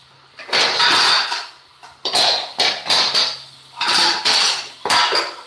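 Kitchenware clattering in about five bursts as pots and lids are shifted and stacked in a low kitchen cabinet, with some ringing knocks.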